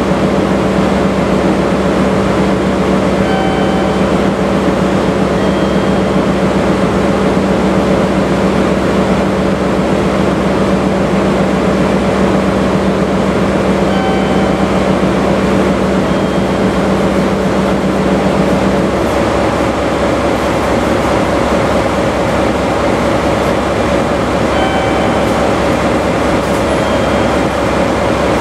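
DE10 diesel-hydraulic locomotive idling at a standstill: a steady diesel engine rumble, with a steady hum on top that cuts out about two-thirds of the way through.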